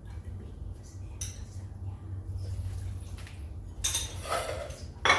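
Kitchen dishes and utensils clinking and scraping, with a louder stretch about four seconds in and a sharp knock near the end, over a steady low hum.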